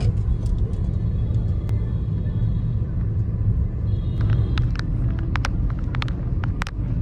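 Steady low rumble of vehicle traffic, with a run of sharp clicks and clinks from about four seconds in.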